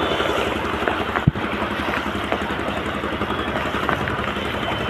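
A motor vehicle engine running steadily over the wash of a flooded street in heavy rain, with one sharp knock about a second in.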